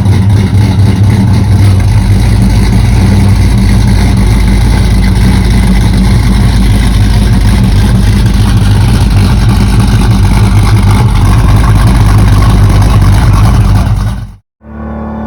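Supercharged V8 engine of a 1969 Dodge Charger running loudly at a steady speed, cutting off suddenly near the end.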